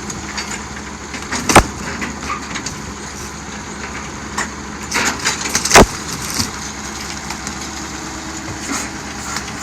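Heavy equipment's engine running steadily while a boat hull is crushed, with loud cracks of the hull breaking about a second and a half in and again near six seconds, and smaller crunching and splintering between.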